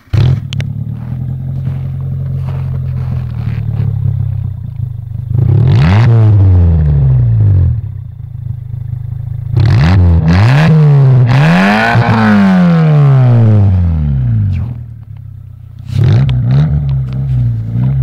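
Renault Twingo engine running through an HD Racing aftermarket exhaust, heard at the tailpipe: it idles steadily and is free-revved in short blips, once about six seconds in, twice in quick succession around ten to thirteen seconds, and once more near the end, each rev rising and falling back to idle.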